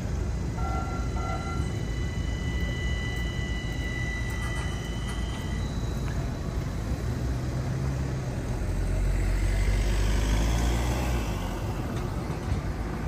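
Street traffic rumbling, with a heavy vehicle passing close by about two-thirds of the way through. There are two short beeps near the start and a faint high steady whine over the first half.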